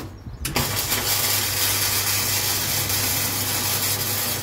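Electric arc welding on steel, the arc crackling and sizzling with a steady low hum under it. It strikes briefly right at the start, breaks off, then runs as one continuous bead from about half a second in.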